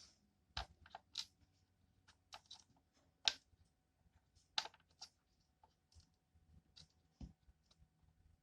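Irregular light clicks and taps of small hard pieces, a denture and repair-kit parts, being handled on a work surface, the sharpest about three and four and a half seconds in.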